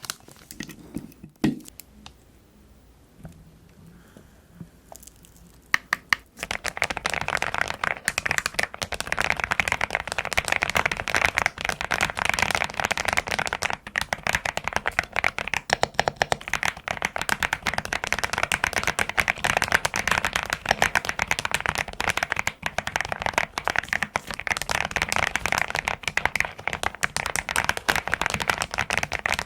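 Custom mechanical keyboard typed on rapidly: a dense, unbroken stream of keystroke clacks starting about six seconds in, after a few scattered clicks.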